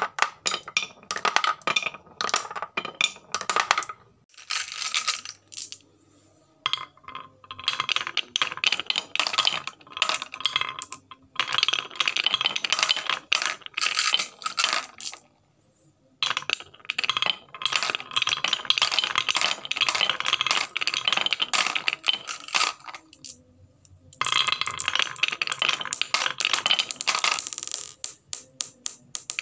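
Marbles rolling down wooden marble-run chutes and clattering into a plastic toy dump truck's tipper bed, in runs of rapid clicks and clacks broken by a few pauses of a second or two.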